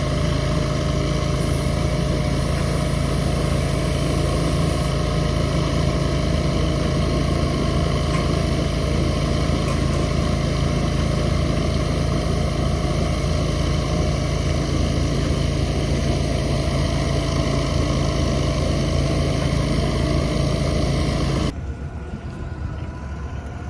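Concrete mixer truck's diesel engine running at steady high revs while the drum mixes the load. It cuts off abruptly near the end, giving way to a quieter background.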